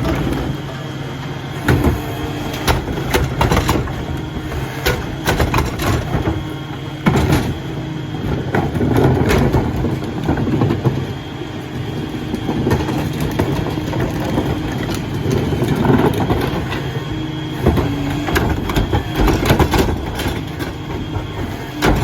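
Dennis Eagle rear-loader garbage truck running at work, its engine and packing machinery going steadily under many clanks and bangs.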